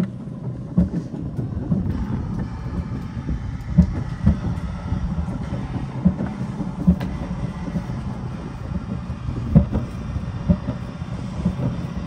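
Alpine coaster sled running on its steel tube track: a steady low rumble of the wheels on the rails, with irregular clunks and knocks as it passes over the track joints and supports.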